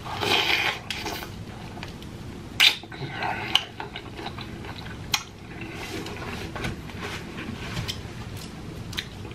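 Close-up eating sounds of a KFC fried-chicken-and-gravy meal: chewing and mouth noises, with three sharp clicks of a utensil against a dish.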